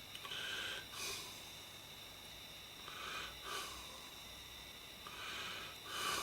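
Close breathing through the nose, three breaths about two and a half seconds apart, each a longer draw followed by a short sharp huff, over a faint steady high whine.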